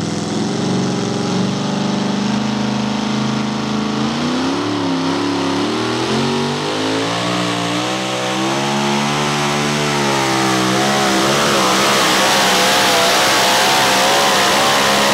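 Supercharged alcohol-burning engine of a super modified two-wheel-drive pulling truck running at full throttle as it pulls the sled. The pitch is steady for the first few seconds, then wavers rapidly up and down, and the sound cuts off suddenly at the end.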